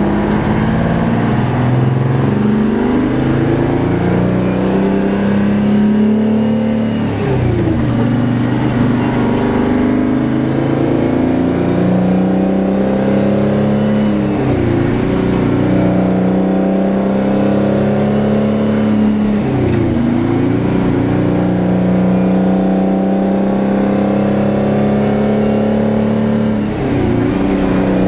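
12V71 Detroit Diesel V12 two-stroke engine pulling a 1973 Kenworth W-923, heard from inside the cab. The engine note climbs steadily, then dips sharply and recovers four times, about every six to seven seconds, as the truck shifts up through the gears.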